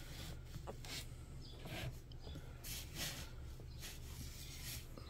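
Faint rustling of a fleece blanket as a five-day-old puppy squirms and is stroked, in short irregular puffs over a low steady hum.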